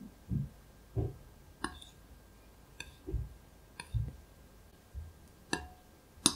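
Thin metal utensil clinking against the side of a glass bowl while stirring melted chocolate: about five sharp clinks, the last one the loudest, one leaving a brief ringing tone. Soft dull knocks fall between the clinks.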